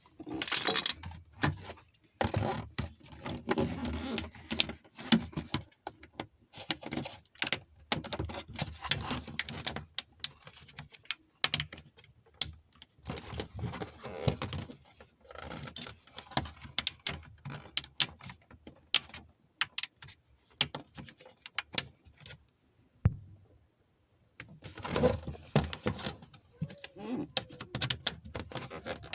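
Unboxing handling sounds: plastic packaging rustling and small plastic Beyblade top parts clicking and clacking, irregular and continuous, with a brief lull about three-quarters of the way through.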